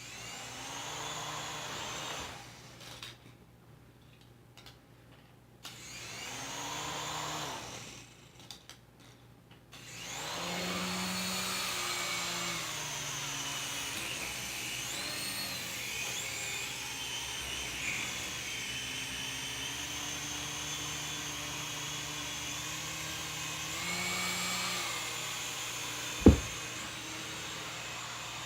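Small electric motors and rotors of a toy remote-control helicopter whirring, spinning up briefly twice, then running steadily with the pitch wavering as it flies. A single sharp knock comes near the end.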